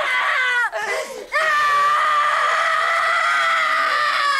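A woman screaming in anguish: two long, high, sustained screams with a brief break for breath about a second in.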